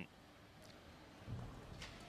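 Faint background noise of a badminton arena between rallies, with a few soft taps and knocks.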